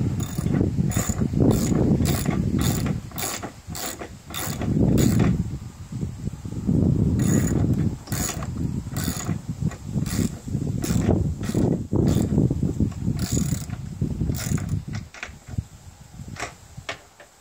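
Ratchet wrench clicking in runs of quick strokes with short pauses, turning a bolt at the top of the door, over an uneven low rumble.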